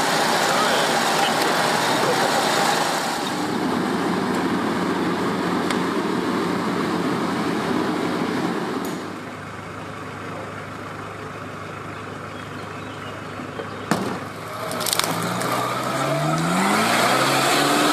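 Off-road 4x4 on the move: engine and rolling noise, dropping about halfway through to a quieter steady engine note. Near the end there are two sharp knocks, then the engine revs up with a rising pitch.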